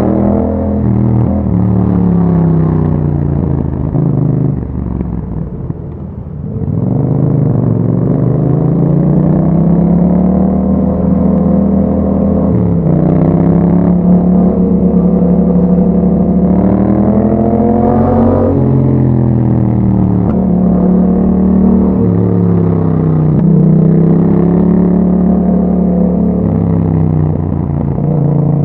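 2021 Yamaha MT-07's parallel-twin engine running through an Akrapovic exhaust with a dB killer, heard while riding. The engine pitch climbs and falls again and again as the throttle is opened, gears change and the throttle is rolled off, with a marked drop off the throttle about five to six seconds in.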